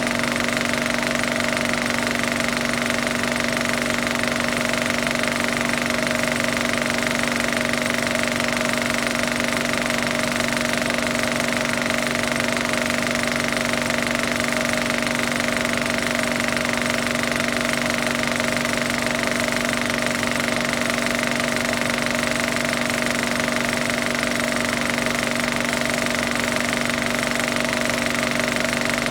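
Film projector running steadily: a rapid mechanical clatter over an unchanging hum.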